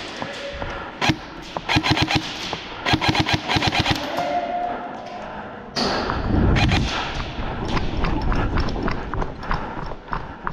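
Airsoft electric guns firing several short, rapid bursts of shots in the first four seconds. From about six seconds in, fast running footsteps on a concrete floor, with heavy thuds.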